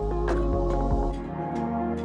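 Background music of held, soft notes with a few light beats; the deep bass drops away about a second and a half in.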